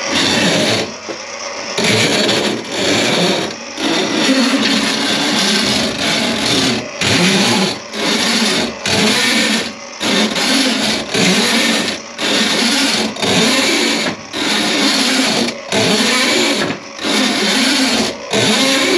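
Powered drain-cleaning cable (drain snake) spinning in a clogged kitchen sink drain line. It runs in repeated surges of about a second each, with brief dips between.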